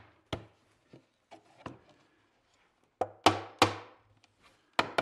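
Wooden drawer back being tapped down into its glued dados: a few light taps, two hard ringing blows about three seconds in, then a quick run of taps, about four or five a second, near the end.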